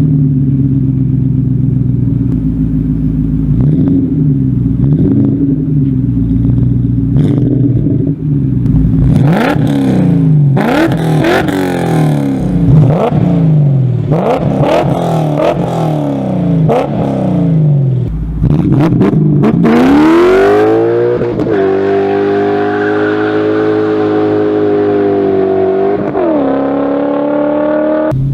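BMW S62 V8 engine running: a steady note at first, then revved up and down several times, then pulling hard to a high, held note that dips briefly near the end.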